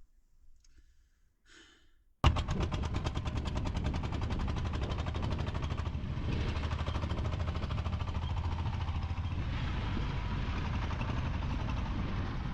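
A small engine, most likely the motor tricycle's, starts suddenly about two seconds in and runs with a fast, even chugging pulse.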